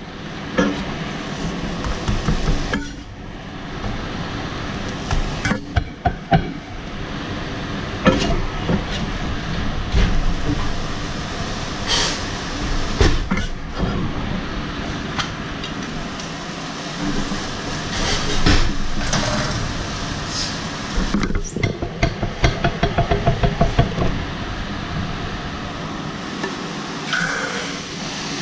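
A slotted metal spatula clatters and scrapes against a frying pan in a string of sharp knocks and clicks as a folded crêpe is worked and lifted out, over a steady fan-like background noise. Later comes a quick run of light taps, about five a second.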